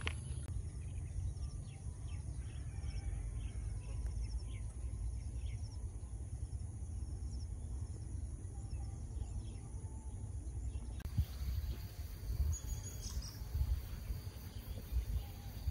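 Outdoor rural ambience: a steady low rumble with faint insects trilling throughout, the insects louder from about eleven seconds in. A short bird call comes about twelve seconds in.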